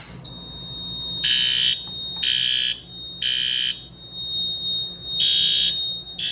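A sharp click as a fire alarm pull station is pulled, then the fire alarm horns sound in the temporal-three evacuation pattern: three half-second blasts, a pause, and the next round beginning, over a steady high tone.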